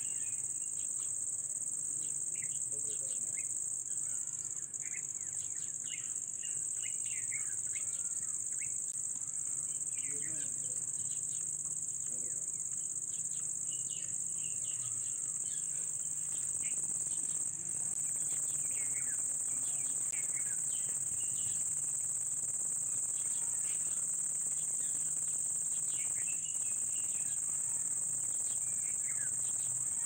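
A steady, high-pitched drone of calling insects, with many short bird chirps scattered through it.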